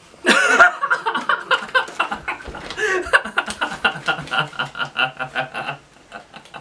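A man laughing very loudly. It opens with a loud whoop just after the start, then runs on as a fast, even string of ha-ha-ha bursts, several a second, and stops near the end.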